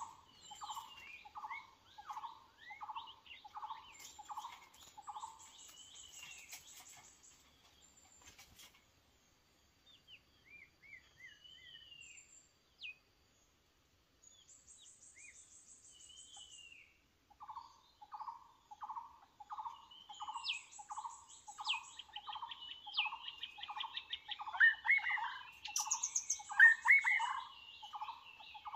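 White-rumped shamas calling: a short low note repeated about twice a second, which stops for a while in the middle and comes back louder near the end, mixed with varied whistled notes. A high, rapid buzzing comes and goes several times.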